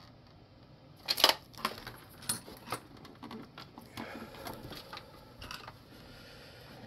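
Small hard parts being handled on a workbench: a few sharp clicks and light rattles, the loudest about a second in, then quieter knocks and rustling.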